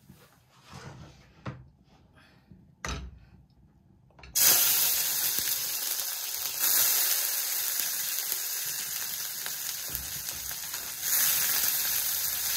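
A few soft knocks, then about four seconds in sliced capsicum and red onion hit hot oil in an aluminium wok and sizzle loudly and steadily. The sizzle gets louder twice as more vegetables go in.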